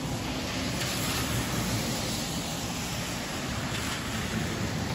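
Steady rushing of rain and wind in a thunderstorm, swelling slightly about a second in.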